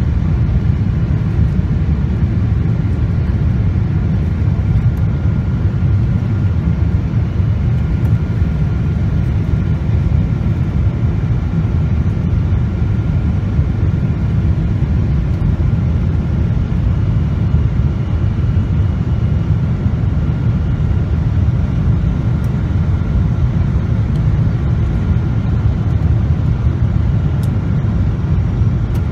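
Steady airliner cabin noise on approach: a constant low rumble of engines and airflow, with a faint steady whine above it.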